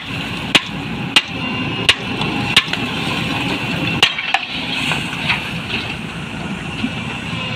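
A hand hammer bangs on the steel tailgate of an Ashok Leyland tipper truck, about one blow every two-thirds of a second, knocking the tailgate free so the tipped load of soil can pour out. The blows stop about four and a half seconds in, leaving a steady truck engine running underneath.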